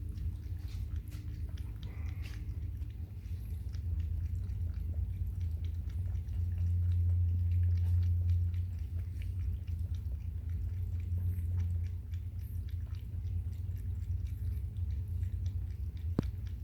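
Cat lapping water: a long run of small, quick, irregular wet clicks from its tongue, over a steady low hum.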